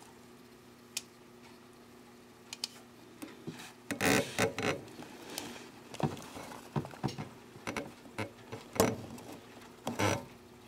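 Handling noise from a camera being worked through the cramped inside of an amplifier chassis. Irregular clicks, taps and rustles start about four seconds in, over a faint steady hum.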